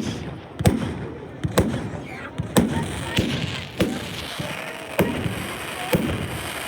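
Fireworks going off in a run of sharp bangs, about one a second, each followed by an echoing tail.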